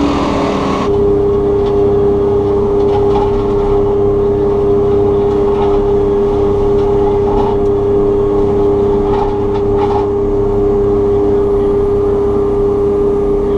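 Takeuchi TB290 excavator running with its FAE mulching head: a loud, steady machine drone. About a second in, the sound changes abruptly to a constant hum, with faint scattered ticks over it.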